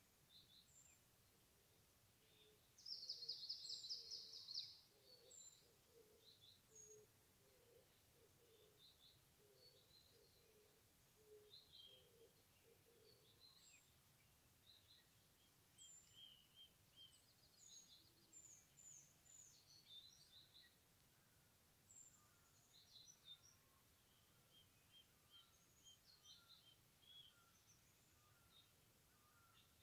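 Forest birds calling quietly: scattered short high chirps throughout, a loud rapid trill about three seconds in that lasts under two seconds, and a low note repeated steadily through the first dozen or so seconds.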